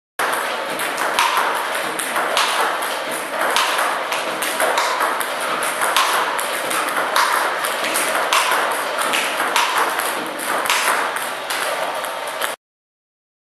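Table tennis balls clicking off the table and the bat as a player returns backspin balls fed by a table tennis robot, a strong hit about every 1.2 seconds with lighter bounces in between. The sound cuts off suddenly near the end.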